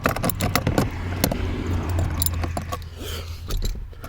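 Rapid metallic clicks and clinks of a hand tool working a small bolt loose, over a low steady hum that fades near the end.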